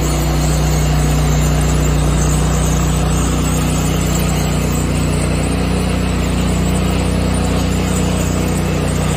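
Mosaic floor grinding machine running steadily: an even, low machine drone with a few steady low tones under a wash of grinding noise.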